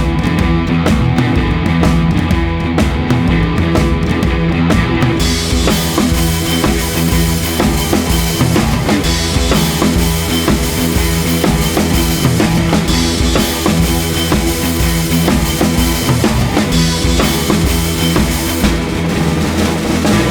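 Background music: rock with a steady drum beat and a bass line, the cymbals and high end coming in about five seconds in.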